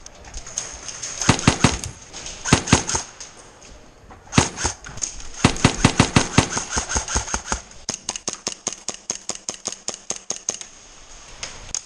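Airsoft guns firing in bursts of rapid sharp pops. There are short bursts in the first half, then a long quick string of shots from about five and a half seconds in, and another string that ends near ten and a half seconds.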